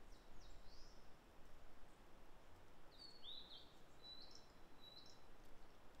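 Blue-and-white flycatcher singing, faint: a short whistled phrase right at the start, then about three seconds in a longer phrase of clear slurred whistles that ends on a couple of level notes.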